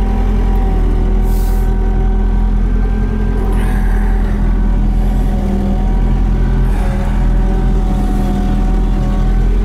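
Diesel engine of a Trackless MT5 tractor running steadily, heard from inside its cab as the machine is driven slowly. A short hiss comes about a second and a half in.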